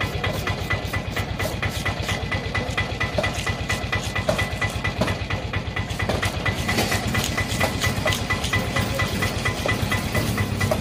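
An engine running steadily with a fast, even beat, with a broad knife blade rasping as it scrapes the scales off a large grouper; the scraping is clearer from about halfway through.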